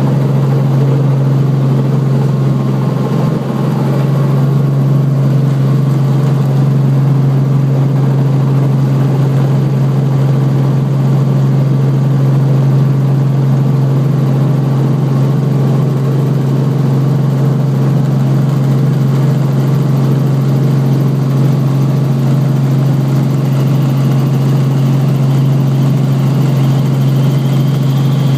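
Light helicopter's engine and rotor running steadily, heard from inside the cabin: a loud, even drone built on a strong low hum. A faint high whine rises slightly near the end.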